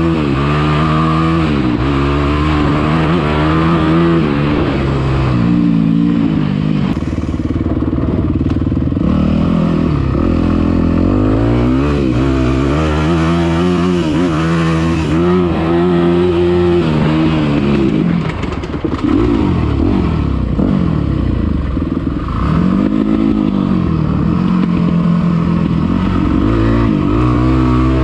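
Dirt bike engine being ridden hard, its pitch climbing and dropping over and over as the throttle is opened and closed. There is a brief lull about eighteen seconds in.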